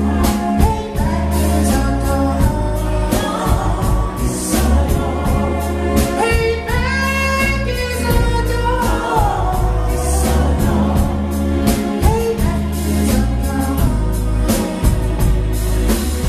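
Live band playing a song with a steady drum beat, a male lead singer carrying the melody over it.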